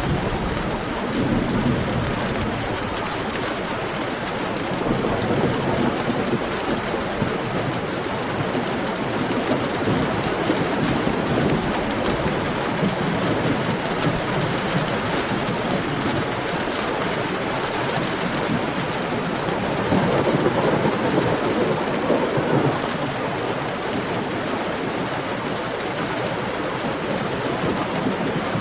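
Heavy rain falling steadily as a dense, even hiss, with deeper rumbling swells about a second in and again around twenty seconds in.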